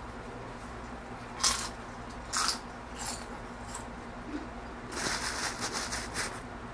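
Tortilla chip crunching close to the microphone as it is bitten and chewed. A loud crunch comes about a second and a half in, a few more follow, and a quick run of crunches comes near the end.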